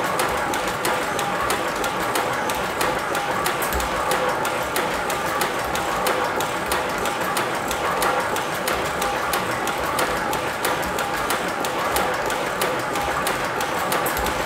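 Small model steam engine running steadily: a fast, even clatter of mechanical ticks with a steady whine under it.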